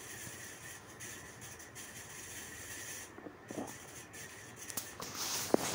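Faint sizzling of spices and garlic frying in mustard oil in a metal kadhai on a low flame, with a few light scrapes of a spatula against the pan and a louder scrape near the end.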